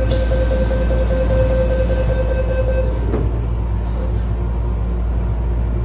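MTR M-train saloon doors closing: a steady door-closing warning tone for about three seconds, then the doors thud shut. A steady low hum from the train's equipment runs underneath.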